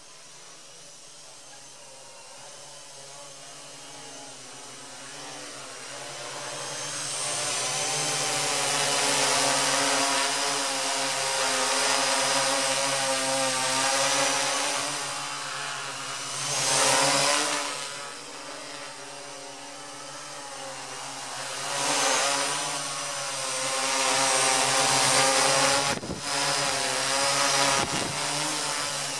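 Quadcopter's electric motors and propellers buzzing in flight, growing louder as it comes in close. The pitch wavers slightly, and the sound surges briefly a few times.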